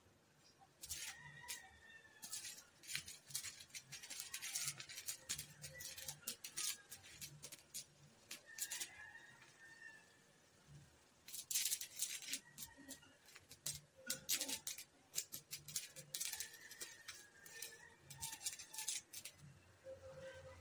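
Stick arc welding with a welding rod on a steel tent-frame joint: the arc crackles irregularly in two runs, with a short break about halfway through.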